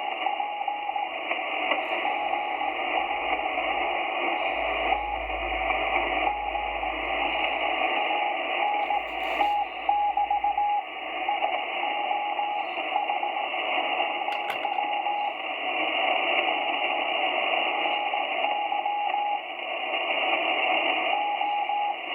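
Morse code on a Ten Tec Omni-A HF transceiver: a single tone keyed on and off in dots and dashes over steady receiver hiss. The keying pauses for a few seconds near the end, then starts again.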